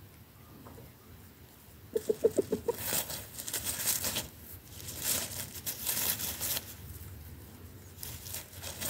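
Rooster giving a quick run of about seven low clucks about two seconds in. Dry grass and leaves rustle and crunch on and off after it.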